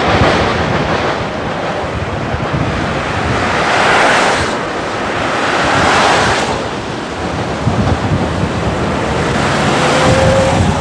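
Street traffic passing a roadside: the rush of cars going by swells and fades several times, mixed with wind buffeting the camcorder microphone. A faint rising whine comes in near the end.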